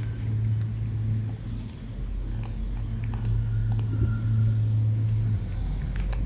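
A cat crunching dry kibble close to the microphone, a scatter of small crisp clicks, over a steady low hum that cuts off about five seconds in.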